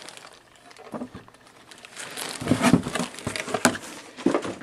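Plastic wrapping crinkling and cardboard rustling as a speaker woofer is handled out of its packaging, with a few light knocks. The rustling is loudest about halfway through.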